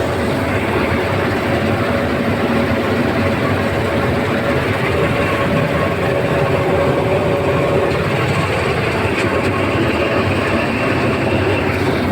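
Combine harvester running steadily: a loud, even mechanical din from its engine and machinery, with a faint steady whine through it.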